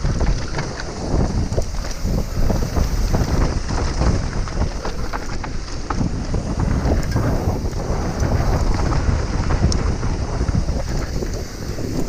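Wind buffeting the microphone of a camera on a mountain bike riding fast down a dirt trail, with the rumble of tyres on dirt and many quick clicks and rattles from the bike over bumps.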